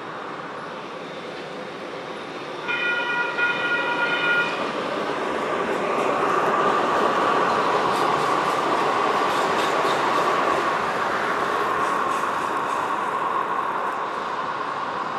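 Sacramento RT light rail train running past on street track, its rumble growing louder from about six seconds in with a steady whine from the wheels and motors. A single horn blast about three seconds in lasts nearly two seconds.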